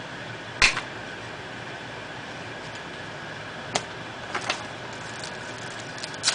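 Trading cards being handled and flipped through in the hands: a few short card snaps and rustles over a steady background hum.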